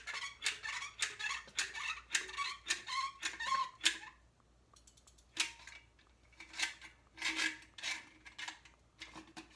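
Manual caulking gun being pumped, its trigger clicking in quick succession, about four clicks a second, with a pause of about a second midway, as a tube of caulk is squeezed out.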